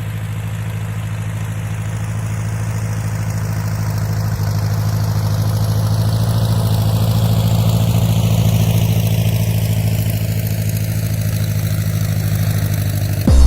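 Massey Ferguson 50 tractor engine running at a steady speed, growing somewhat louder toward the middle.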